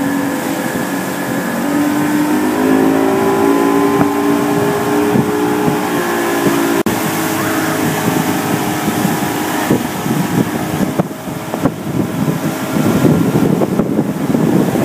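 Outboard motor of a motorboat running under way at towing speed, a steady drone that drifts slightly in pitch, with wind buffeting the microphone and the wake's water rushing. The sound changes abruptly about seven seconds in, after which the wind and spray noise is uppermost.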